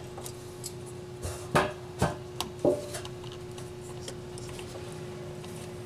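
Hands and a small tool knocking and clicking against the metal and plastic parts around the EVAP canister while the vent solenoid is fitted back in, about four sharp knocks between one and three seconds in. A steady hum runs underneath.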